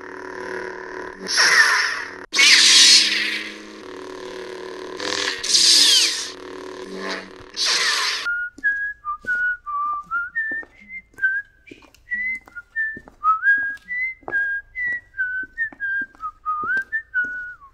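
Four loud, rushing noise bursts over a low steady hum, then someone whistling a tune of short stepped notes with small slides between them.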